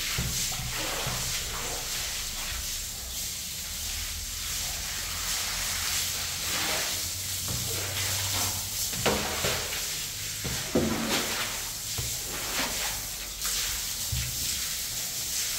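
Water spraying from a garden hose and splashing onto a wet tiled floor, with a broom sweeping the wet floor. Two sharp knocks in the second half.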